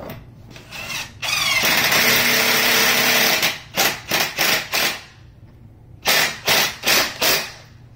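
DeWalt 20V MAX XR cordless impact driver driving a screw into wooden bed-frame parts: one short burst, then a two-second run of hammering that starts with a rising whine, then eight short bursts in two groups of four with a pause between.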